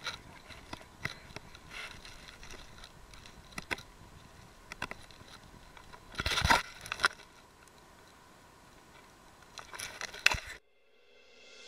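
Irregular crunches, scrapes and handling noise from a handheld camera carried along a dirt track, loudest in a cluster about six seconds in. The sound cuts out abruptly near the end.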